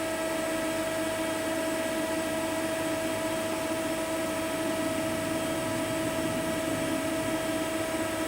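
Steady hum of a powered-up Mazak V-414/32 CNC milling machine standing idle: a constant mid-pitched whine and fainter steady tones over an even whirring hiss.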